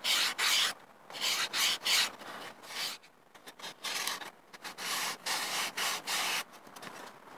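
Sandpaper wrapped around a fingertip sanding a foam model-aircraft airframe: quick back-and-forth strokes in runs, with a short pause midway, stopping about a second before the end.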